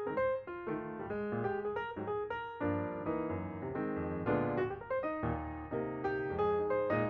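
Background piano music, a flowing run of notes several a second.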